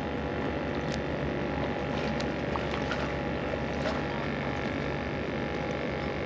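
Steady droning background noise with a faint held hum in it, and a few light ticks scattered through.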